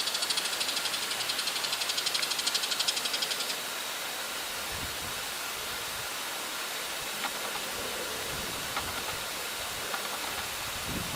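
Bull-headed shrike giving its harsh, rapid chattering call, a fast run of high notes that stops about three and a half seconds in, leaving a steady hiss.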